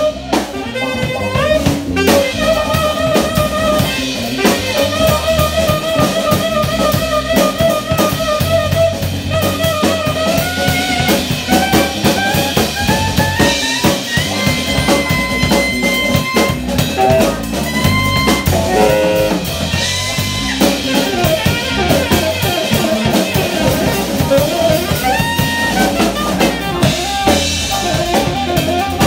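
A live band playing: a saxophone leads with held, wavering notes that climb higher through the middle, over electric bass and a drum kit.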